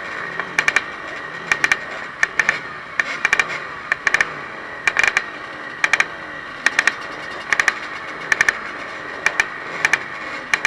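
Four-stroke enduro motorcycle engines, a Yamaha WR250F among them, idling steadily at the start line. Sharp clicks come in quick clusters about once a second.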